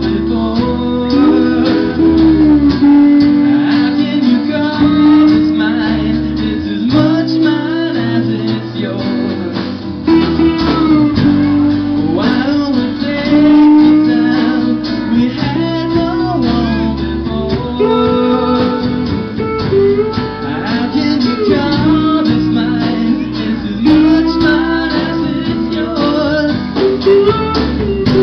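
Live band playing a song: strummed acoustic guitar with electric guitar, bass guitar and drums, loud and continuous.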